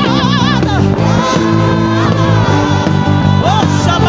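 Live gospel praise music: a singer holding wavering notes with vibrato over a full band, with a bass guitar playing low notes underneath.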